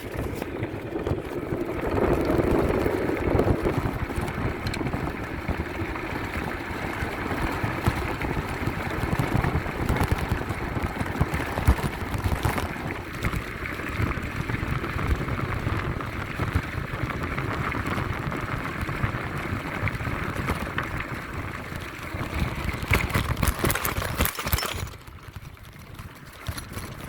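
Bicycle rolling over a rough forest dirt track: a continuous rumble and rattle of tyres and frame, with a burst of louder clattering about 23 seconds in. It quiets down abruptly a couple of seconds before the end.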